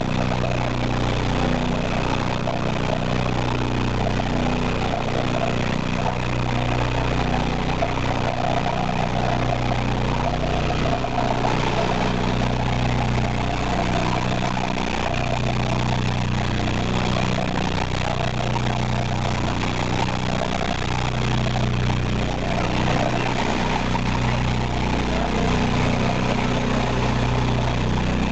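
Mud recycler's shale shaker running: a steady, even machine hum, with mud and cuttings washing across the vibrating mesh screens.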